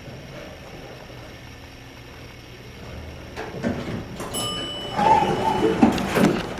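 L.H. Gay passenger elevator arriving: after a quiet stretch, a single chime sounds about four seconds in. The doors then slide open with a clatter near the end.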